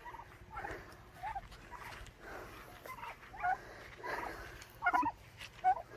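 A scattered series of short, high animal calls.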